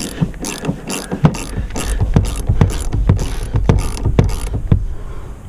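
Ratchet wrench clicking in repeated short strokes, about three clicks a second, as it loosens the upper mounting nut of a rear shock absorber on a 2006 Toyota Sienna.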